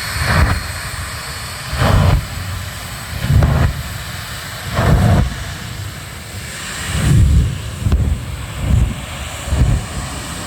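Airplane engine in flight, with a steady drone overlaid by short low swells that come and go every second or two.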